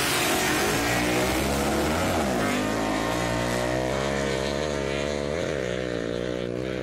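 Two modified street motorcycles launching together on a dirt drag strip and pulling away at full throttle. The engine note dips and climbs again about two seconds in and once more about five seconds in, and slowly fades as the bikes run off down the track.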